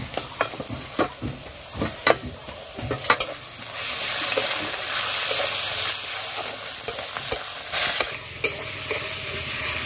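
Onions frying in mustard oil in a kadai with freshly added garlic and ginger paste. A metal spatula scrapes and taps several times, then the sizzle grows louder from about four seconds in as the spatula stirs the paste through the onions.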